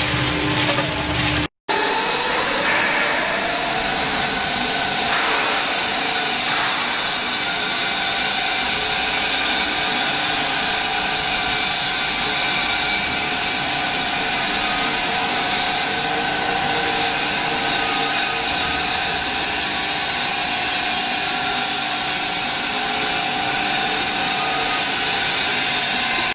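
Soap-making machinery running: a steady mechanical whir with a motor whine that rises in pitch about two seconds in and then holds level.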